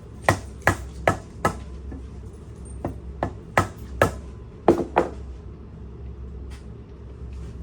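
Sharp metal-on-metal strikes, about ten in three quick groups with a brief ring after each, as tools work on the pump-motor assembly; quieter after about five seconds.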